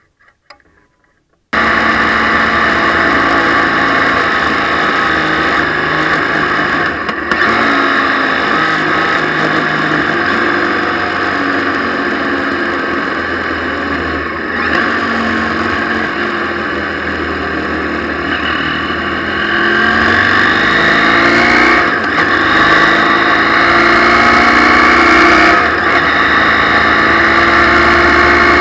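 Motorcycle under way on a wet road: the engine runs with its pitch rising and falling as it accelerates and shifts, under a steady rush of wind and tyre hiss. It starts abruptly about a second and a half in, after a few faint clicks.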